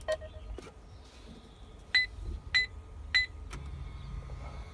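Three short, identical electronic beeps about half a second apart from a Panasonic touchscreen DVD head unit, its key-press tones as the screen is touched.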